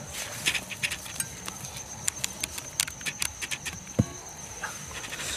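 Crickets chirping in a steady high trill, with scattered clicks and rustling of soil as a snake is grabbed and handled, and one sharp knock about four seconds in.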